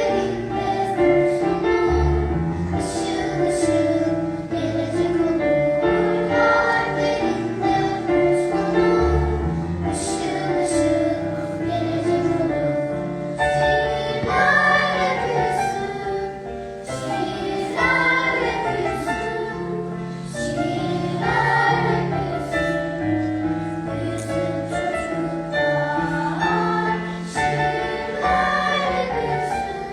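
A choir singing held notes in parts over an instrumental accompaniment with a bass line that moves in steps.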